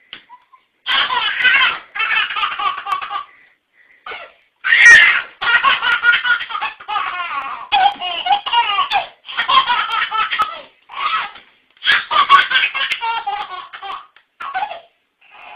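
Baby laughing in repeated hearty fits, starting about a second in, with a brief high squeal near the five-second mark.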